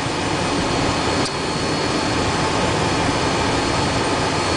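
Twin Pratt & Whitney JT15D turbofans of a Cessna Citation I heard from inside the cockpit: a steady rushing noise with a thin high whine as the jet rolls along the runway.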